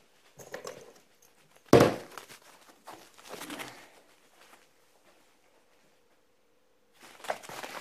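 A sharp knock close to the microphone about two seconds in, amid footsteps and rustling on a bare floor that fade away, leaving a few seconds of near quiet before soft movement sounds return near the end.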